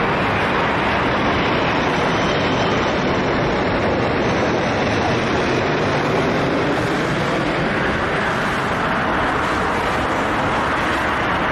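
Airbus A380's four turbofan engines passing low overhead on approach, a loud, steady rushing jet noise.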